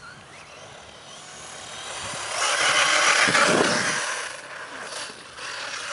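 HPI Vorza 1/8-scale radio-controlled buggy driving over loose sand, its motor and tyres growing louder as it passes close, loudest from about two to four seconds in, then fading away.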